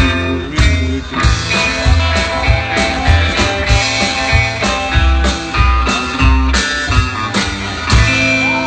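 Live rockabilly band playing: upright bass, drum kit, acoustic rhythm guitar and electric guitar, with a steady beat and a strong low bass pulse, heard from the audience in a small club.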